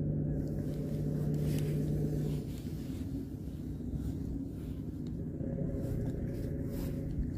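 A low steady rumble with a droning hum that stops about two and a half seconds in.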